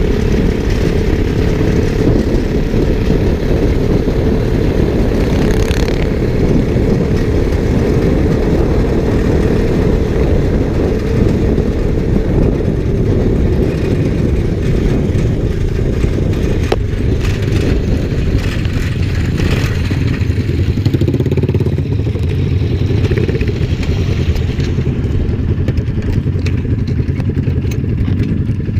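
Motorcycle running at road speed, heard through an onboard action camera's microphone as a dense, steady low rumble. From about 18 seconds in, a steadier low engine tone comes through.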